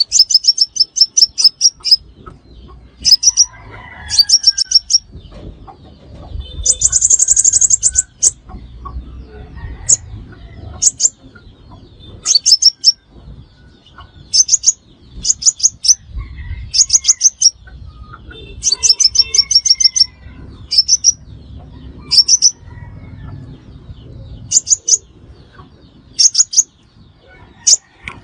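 Sunbird calling: short, rapid trills of high, sharp chip notes repeated every second or two, with a longer, denser buzzy trill about seven seconds in. It is a lure call of the kind played to draw sunbirds to a trap.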